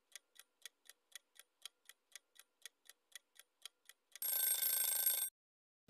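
Quiz-timer clock-ticking sound effect, even ticks about four a second, then about four seconds in a short alarm-like signal lasting about a second marks the end of the answer time.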